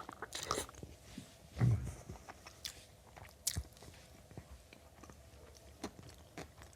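Close-up chewing of a mouthful of breakfast ramen with crispy bacon: soft crunches, wet smacks and scattered small clicks.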